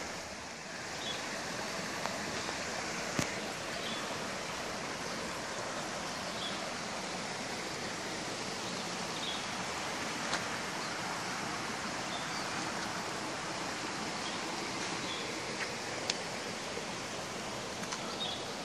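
Steady outdoor rushing noise, like running water or wind in the trees, with faint short high chirps here and there and a few light clicks.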